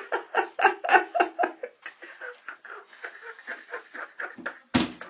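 A person laughing in quick, repeated pulses, loud at first and then fading off. A dull thump comes near the end.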